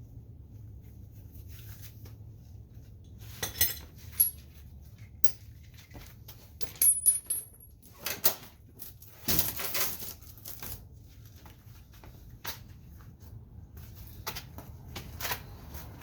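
Scattered metallic clinks and knocks of wheel hardware being handled and fitted to a car's wheel hub, a few of them ringing briefly. The clatter is busiest in the middle.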